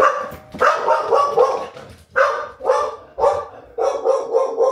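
Dog barking repeatedly, about two barks a second, set off by the doorbell, whose chime is still fading in the first half second.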